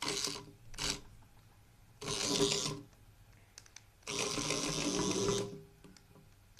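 Small electric motor of a toy hoverboard whirring in short runs: a brief run at the start, another about two seconds in, and a longer one of about a second and a half about four seconds in, with quiet gaps between.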